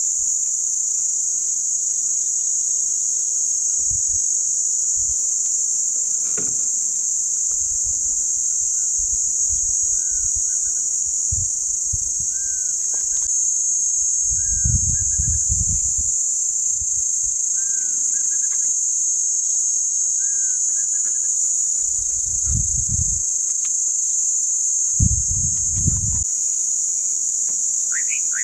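A steady, high-pitched drone of insects in dry savanna bush. Through the middle, a bird repeats a short rising note followed by a quick trill every couple of seconds, and there are a few bouts of low rumbling, the longest about halfway through.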